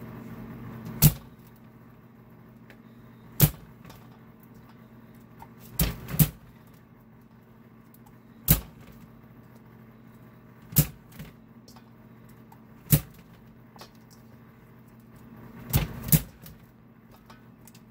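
Hand-operated push-through vegetable chopper dicing bell pepper: the pusher head is slammed down through the metal grid blade, each stroke giving a sharp clack. There are about seven strokes, roughly every two seconds, two of them doubled, over a low steady hum.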